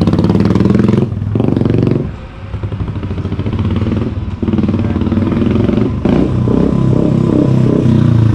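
Royal Enfield Bullet 350's single-cylinder engine through a loud SC Project aftermarket silencer. The motorcycle rides away down the street and comes back in a fly-by. The sound dips briefly about two seconds in, then the engine is heard again, its pitch rising and falling with the throttle as the bike returns.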